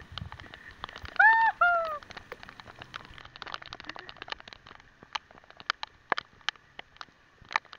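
Raindrops striking the camera as irregular sharp clicks, with two loud pitched calls a little over a second in, the second one falling in pitch.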